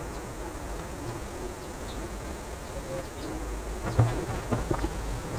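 Hands pressing and folding soft cookie dough on a marble countertop: faint handling sounds over a steady low hum, with one sharp knock on the counter about four seconds in.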